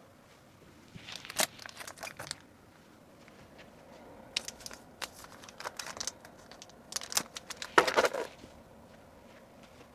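Packaging crinkling and rustling in several short bursts as memo books are handled and packed.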